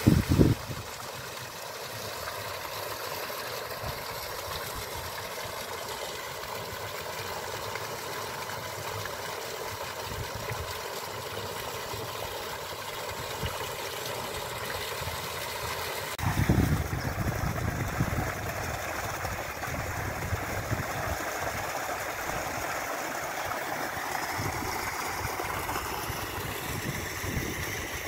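Water spouts pouring from a stone wall into a pool, a steady splashing rush. A low rumble comes about half a second in and again for a couple of seconds around the middle.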